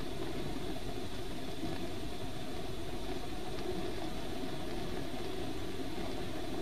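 Bunsen burner burning with a roaring flame: a steady rushing noise with no change.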